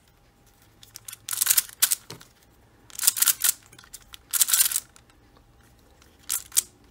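Xiaomi Giiker i3 smart cube being turned by hand: quick plastic layer turns, each a short rasping click, coming in three main bursts with a few lighter clicks between.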